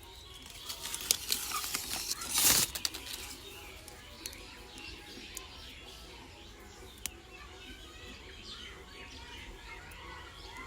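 Birds chirping, with a flurry of clicks and one loud rustling burst about two and a half seconds in.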